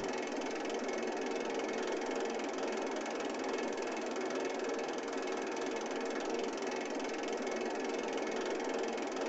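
Steady, even mechanical running noise with a faint hum and no rhythm, like a vehicle or machine sound effect.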